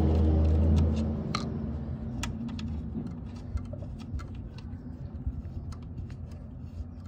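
Scattered light metallic clicks and ticks as a screw is turned out by hand from the battery cage bracket of a 1991 Suzuki Intruder motorcycle. A low vehicle rumble fades out about a second in.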